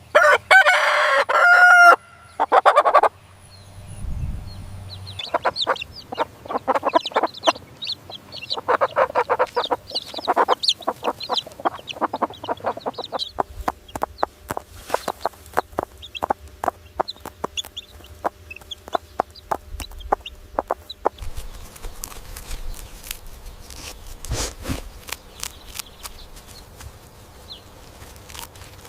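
A rooster crows at the start, then chickens cluck in many short, quick calls, thinning out near the end.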